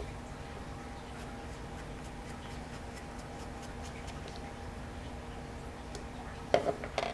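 Small metal parts of a spinning reel clicking and tapping lightly as they are handled and fitted back together, then a brief cluster of louder knocks near the end, with a faint steady hum underneath.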